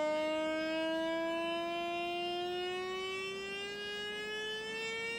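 Small speaker with a mirror glued on its cone, driven by a function generator, sounding a steady tone with many overtones whose pitch glides slowly upward as the generator's frequency is swept.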